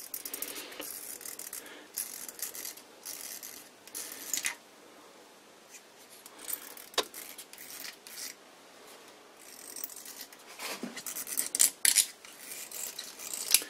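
A box-cutter blade scraping green oil residue off a bronze lathe spindle bearing, in short irregular strokes. The scraping is busy at first, quieter for a few seconds in the middle with a single sharp click, and busy again near the end.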